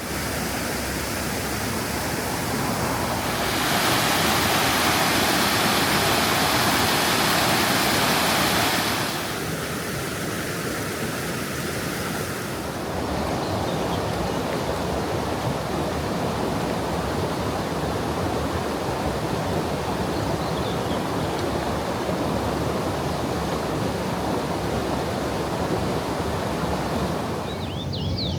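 Steady rushing water of a mountain stream. The rush grows louder and hissier a few seconds in, eases off again, and shifts once more about midway.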